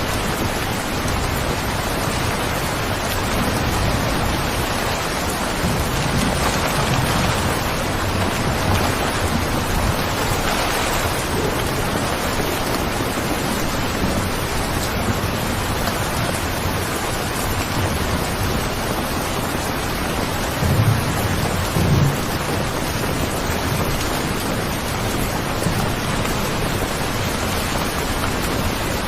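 Steady rain falling as an even hiss, with two brief low rumbles about two-thirds of the way through.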